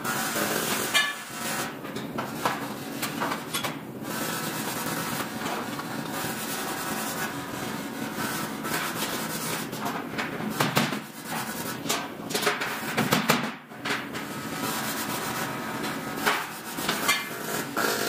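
Metal-working factory floor noise: a steady machinery hum with scattered metal knocks, clanks and rubbing as aluminium ladder parts are handled at a welding jig.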